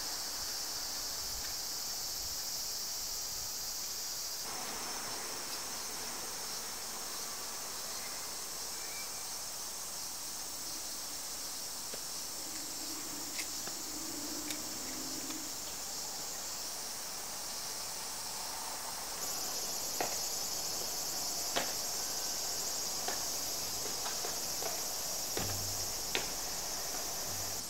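A steady, high-pitched chorus of insects chirring outdoors, with a few sharp clicks in the second half.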